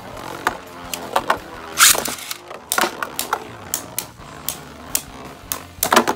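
Two spinning Beyblades, the custom 3D-printed Ares and Spriggan Requiem, clashing in a plastic stadium: irregular sharp clacks about twice a second, loudest about two seconds in and again near the end, over the steady whir of the tops spinning on the plastic floor.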